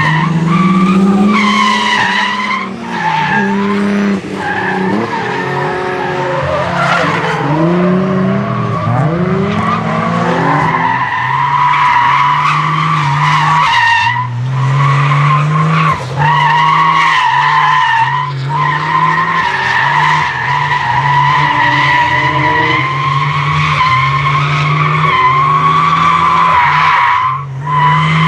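Toyota Supra MK3 Turbo drifting: its tyres hold a long, high-pitched squeal while its turbocharged straight-six engine revs rise and fall again and again as the throttle is worked. The sound dips briefly a few times.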